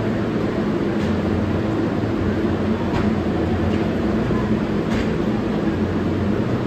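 Steady low rumble and hum of a New York City subway train running in the station, with faint ticks about every two seconds.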